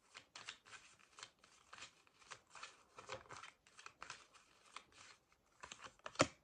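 A deck of oracle cards shuffled by hand: a quick run of papery flicks and slaps, about three or four a second, ending in a sharper, louder snap near the end as a card jumps out of the deck.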